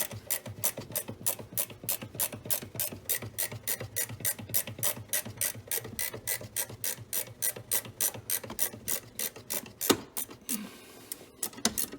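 Ratcheting wrench clicking steadily as a bolt is turned, about four or five clicks a second. One louder knock about ten seconds in, then a few more clicks near the end.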